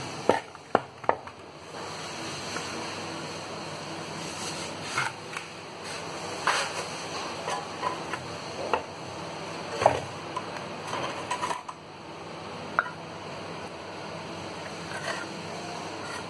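Trowel scraping and clinking against a metal pan while scooping cement mortar, then patting and scraping it into place around a drain grate in marble. A few sharp knocks in the first second, then irregular scrapes and taps.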